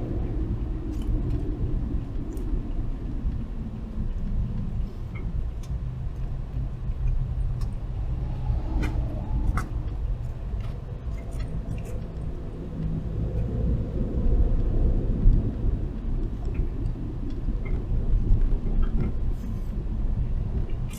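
Steady low rumble of a moving car, heard from inside the cabin, with a few faint short clicks scattered through it.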